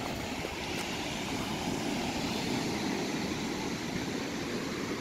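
Surf washing onto a sandy beach: a steady rushing noise that swells a little midway.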